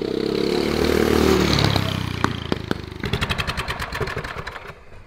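Turbocharged Predator 420cc single-cylinder engine of a drift trike running loud as the trike comes in, then easing off with a few sharp cracks. It settles into an even, rapid idle beat up close, which dies away near the end.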